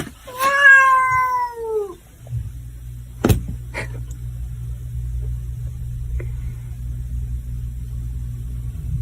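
A cat gives one long meow that falls in pitch and lasts over a second and a half. A sharp click and a steady low hum follow.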